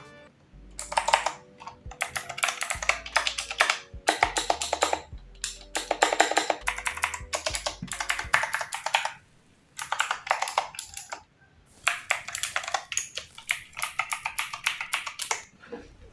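Fast typing on a Tecware Spectre Pro RGB mechanical keyboard: rapid runs of key clicks, broken by two short pauses past the middle, over background music with a bass line.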